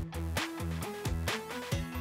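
Background music: an electronic track with a steady beat and a moving bass line.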